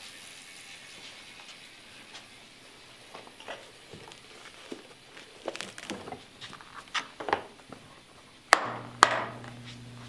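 Hard plastic tool case being handled: small clicks and knocks of tools and the lid, then two loud sharp snaps about half a second apart near the end as the case is shut.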